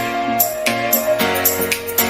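Music with a steady beat: a sustained melody line gliding between held notes over a bass line.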